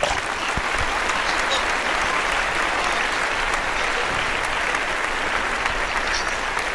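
Canal water splashing and churning right at the microphone as a person moves in it: a steady, even hiss flecked with small sharp splashes.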